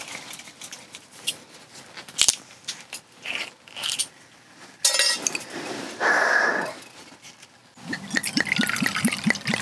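A green glass soju bottle is handled with a few clicks and taps, and its metal screw cap cracks open with a short crackle partway through. Near the end, soju glugs out of the bottle into a small stainless steel cup in quick gurgles.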